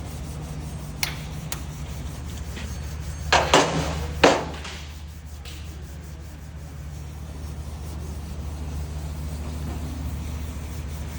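A steady low machine hum, with a few sharp metallic knocks and clanks of tools or engine parts being handled, the loudest three coming together about three to four seconds in.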